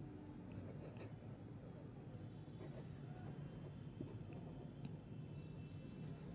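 A pen scratching faintly on ruled notebook paper as words are written out by hand in cursive, over a low steady hum.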